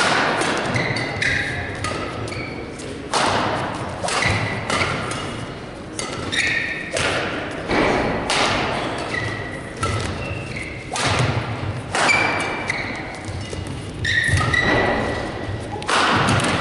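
Badminton rally: sharp racket strikes on the shuttlecock coming about once a second, with court shoes squeaking and thudding on the court as the players move and lunge.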